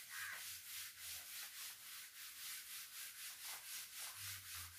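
Whiteboard duster wiped back and forth across a whiteboard, a faint scratchy rubbing in quick, even strokes at about four a second.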